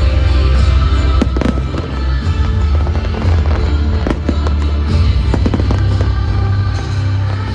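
Fireworks shells bursting with sharp bangs and crackle, several scattered reports a little over a second in and another cluster from about four to six seconds in, over loud show music with a heavy bass line.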